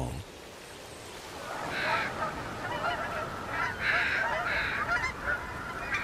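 A flock of geese calling in flight: many short, overlapping honks that swell in after about a second and a half and carry on as a steady din.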